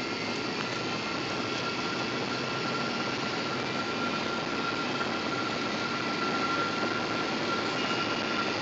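Cabin noise of a jet airliner on its landing approach: the steady rush of the wing-mounted jet engines and airflow, with a thin steady whine, growing slightly louder about six seconds in.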